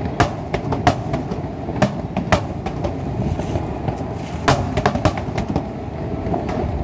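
Fireworks display: irregular sharp bangs and pops, a few each second at times, over a continuous rumbling din of distant explosions.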